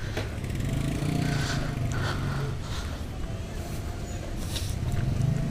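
A vehicle engine running with a steady low hum, swelling about a second in and again near the end.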